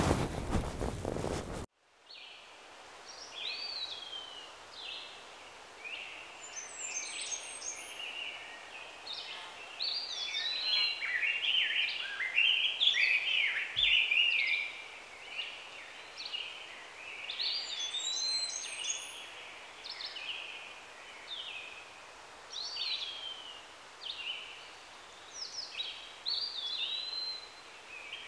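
A loud rushing noise cuts off sharply after a second or two. Then several birds sing and call, with many overlapping chirps and swooping whistles over a faint outdoor background.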